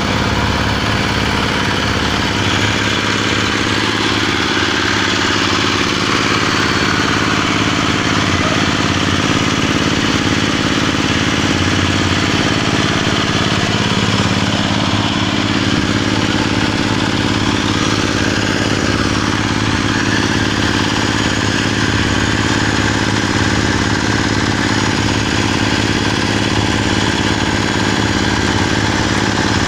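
Small stationary engine running steadily under load, driving a paddle mixer through a belt and gear reducer as its blades churn moist soil.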